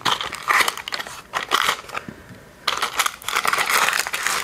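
Clear plastic packaging crinkling and cardboard rubbing as a spring balance in a plastic bag is slid out of a narrow white cardboard box. It comes in several short bursts, then a longer stretch of crinkling near the end.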